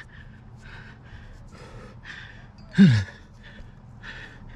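A rock climber breathing hard and fast with effort in quick short breaths, with one loud falling grunt a little under three seconds in.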